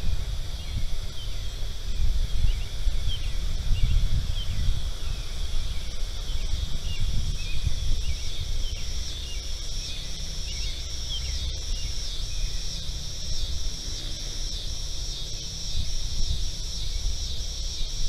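Outdoor insect chorus: a steady high-pitched trill, joined about seven seconds in by a pulsing insect call repeating about twice a second, with scattered short high chirps through the first part. A steady low rumble runs underneath.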